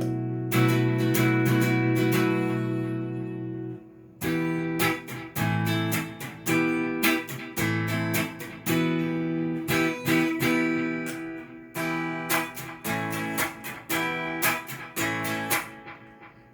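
Cort S series electric guitar through a Fender amp: a chord rings out and fades over about four seconds, then a run of strummed and picked chords, the last one left to fade near the end.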